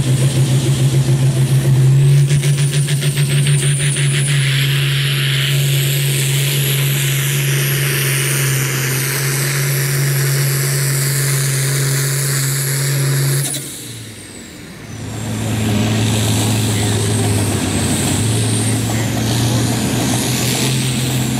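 International Harvester pulling tractor's diesel engine running hard under load as it drags a weight-transfer sled, with a high whistle above the engine note. The engine note pulses quickly for the first few seconds, then holds steady. About two-thirds of the way through it drops off briefly, then picks back up.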